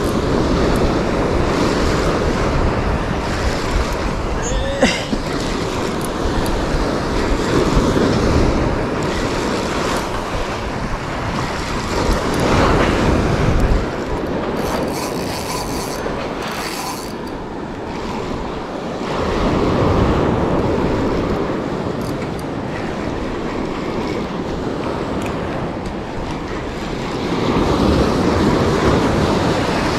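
Surf breaking and washing up a pebble beach, swelling with each wave every several seconds, with wind buffeting the microphone.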